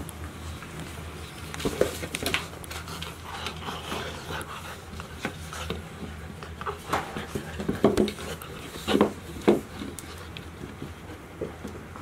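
Golden retriever puppies milling about together: scattered light knocks, scuffs and rubbing, with some panting, and a few louder short sounds about eight to nine and a half seconds in.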